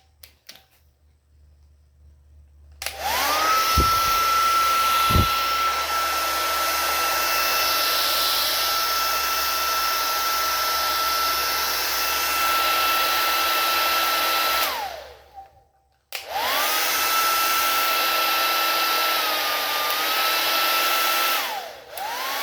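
Tresemme 2000-watt compact hairdryer switched on, its motor whine rising to a steady pitch, running for about twelve seconds and winding down. It is switched on again for about five seconds, with a small dip in pitch partway, winds down, and starts once more at the very end. Two low thumps come a second or two after the first start.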